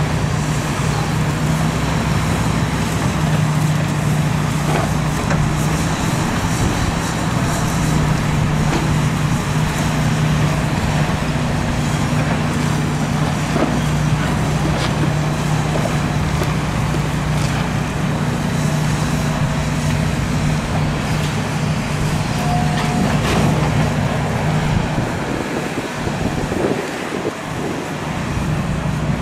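Hitachi tracked excavator's diesel engine running steadily while it works demolition rubble, with occasional knocks of concrete being handled by its grab. The low engine note eases briefly near the end.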